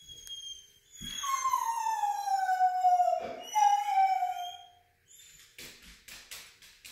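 A foxhound howling: one long howl that slides down in pitch, then a shorter second howl after a brief catch, crying at being left behind. Then a run of light clicks from her claws on the hardwood floor as she walks.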